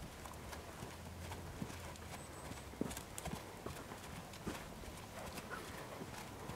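Welsh cob trotting on the soft dirt footing of a round pen: a steady, fairly faint series of hoofbeats.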